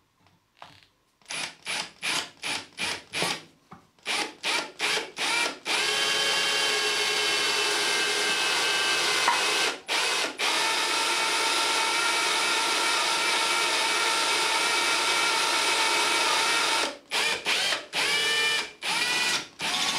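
AEG cordless drill with a cobalt bit drilling into a broken bolt. After about a second of quiet it runs in a series of short trigger bursts, then drills steadily for about eleven seconds with one brief pause, then a few more short bursts near the end, the motor's whine rising as it spins up each time.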